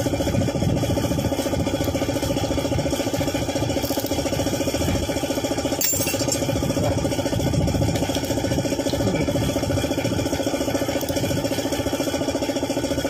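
Suzuki F6A three-cylinder engine idling steadily, with a brief click about six seconds in.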